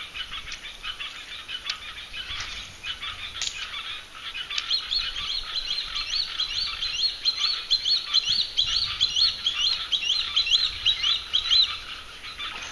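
A dense chorus of many small animals giving rapid, repeated chirping calls. It thickens and grows louder about four and a half seconds in, then eases near the end.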